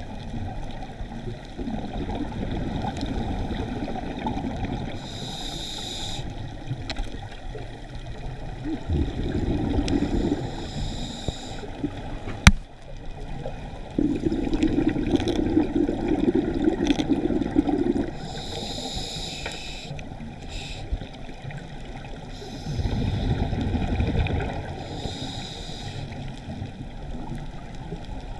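Scuba diver breathing through a regulator, heard underwater through a camera housing: short hissing inhales alternate with longer, louder bubbling exhales. A single sharp click comes about twelve and a half seconds in.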